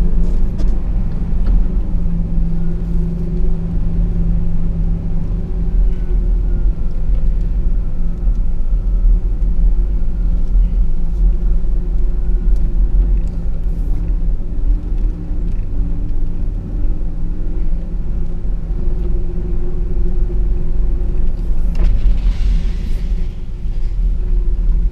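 Dodge Power Wagon's Hemi V8 and drivetrain rumbling steadily as the truck crawls through snow in four-low with front and rear lockers engaged. A brief hiss comes near the end.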